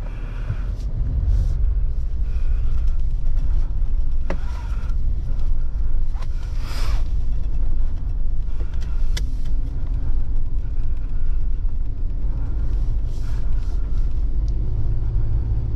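Jeep Wrangler driving off-road through deep snow: a steady low engine and drivetrain rumble that builds over the first couple of seconds, with a few sharp clicks.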